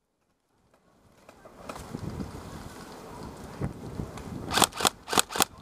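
Near silence for about a second, then wind and movement noise on the microphone, then four sharp airsoft gun shots about a quarter of a second apart near the end.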